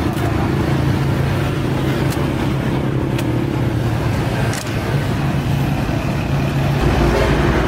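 Road traffic: vehicle engines running with a steady low hum, and a few short clicks along the way.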